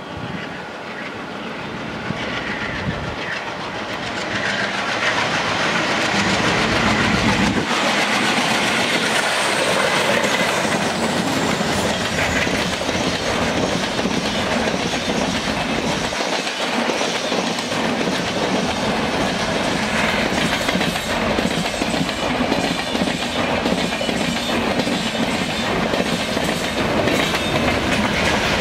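Twin WDM-3A ALCO diesel locomotives chugging hard as they haul an express passenger train past at speed, followed by the coaches rolling by with wheels clattering over the rail joints. The sound grows louder over the first few seconds as the train closes in, then stays loud and steady.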